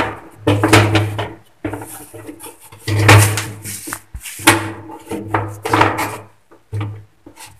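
Hollow plastic toilet cistern being handled and pressed onto its wall fitting: a run of irregular knocks, rattles and scrapes of the plastic tank.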